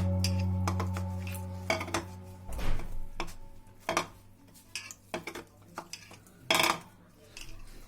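Kitchen utensils and dishes clinking and knocking against each other, a handful of separate sharp strikes at uneven intervals.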